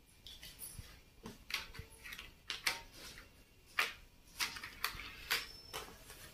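Light, irregular clicks and paper rustles, about ten in all, as felt-tip markers are uncapped and handled and a large sheet of chart paper is moved about on a glass-topped table.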